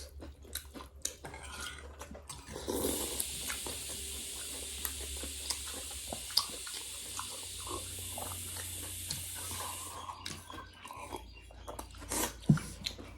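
Close mouth sounds of eating thukpa noodle soup: chewing, wet slurps and small clicks of spoon or bowl. A steady hiss runs from about three seconds in to about ten seconds in, and there is a sharper knock near the end.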